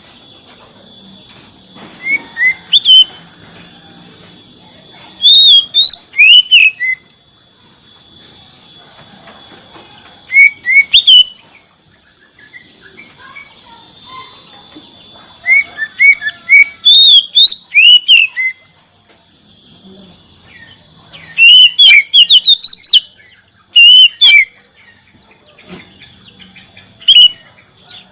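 Oriental magpie-robin (kacer) singing: loud bursts of quick, sliding whistled notes, repeated in phrases every few seconds with short pauses between.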